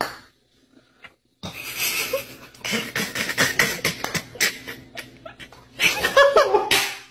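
People laughing in choppy bursts, starting about a second and a half in and loudest near the end.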